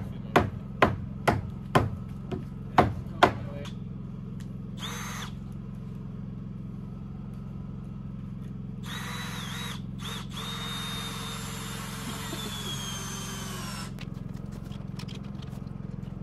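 About eight sharp knocks in the first three seconds, roughly two a second. Then a cordless drill drives screws into the pallet wall: a short burst about five seconds in, then a longer run from about nine to fourteen seconds whose whine sags slightly toward the end.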